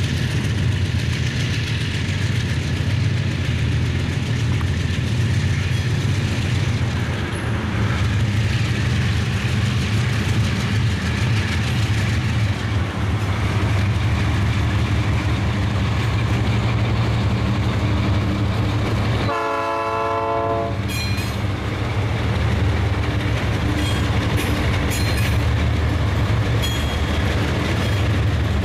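Several diesel-electric freight locomotives passing close by, their engines giving a steady, heavy rumble. About two-thirds in, a locomotive horn sounds one blast of about a second and a half. Near the end, wheels click over the rail joints as the train rolls by.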